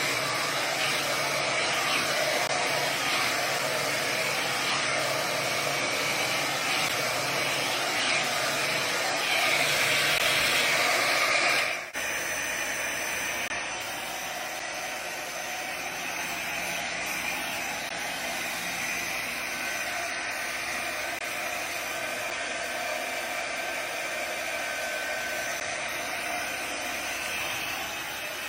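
MINFEL 4-in-1 hot air brush running, a steady rush of blown air with a motor whine. About twelve seconds in it breaks off briefly and carries on at a quieter level.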